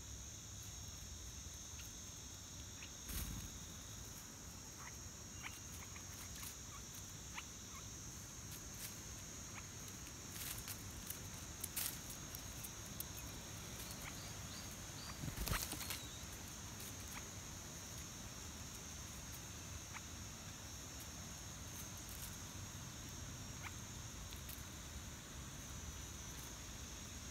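A steady high-pitched insect drone. Over it come scattered soft taps, pecks and rustles from birds and a squirrel feeding on corn kernels on a rock, with two louder knocks about 3 and 15 seconds in.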